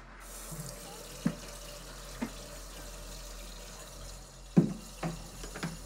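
Kitchen tap running steadily into a sink, with five short knocks against it, the loudest about four and a half seconds in.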